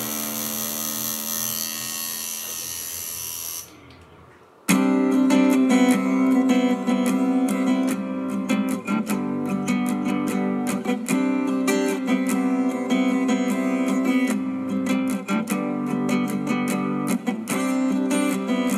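Background music: a steady hum cuts off about four seconds in, and a second later strummed acoustic guitar music starts and keeps going.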